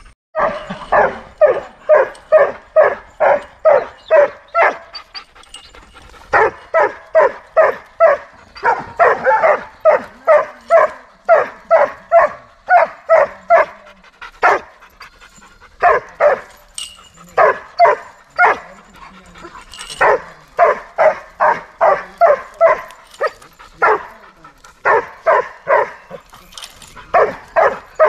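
Doberman barking rapidly and repeatedly, about two to three barks a second, in runs of several seconds broken by short pauses.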